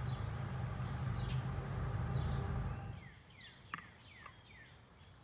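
Low rumble of a passing train that dies away about three seconds in. Small birds then chirp in short falling notes, with a single sharp click.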